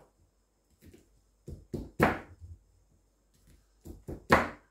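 A cleaver chopping through fresh corn cobs on a wooden chopping board: a few sharp chops, the loudest about two seconds in and near the end, with lighter knocks between.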